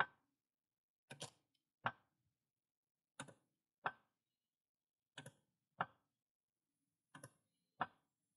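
Hydraulic floor jack being pumped by its handle, faint clicks in a steady rhythm: a light click, then a louder one about half a second later, repeating about every two seconds. Each stroke drives a wooden beam down against the tire sidewall to break the bead.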